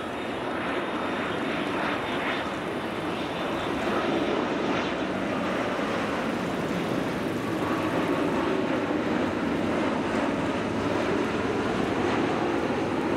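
Boeing 787-8 Dreamliner's jet engines on final approach, passing low overhead: a steady rushing jet noise that swells over the first few seconds and then holds loud.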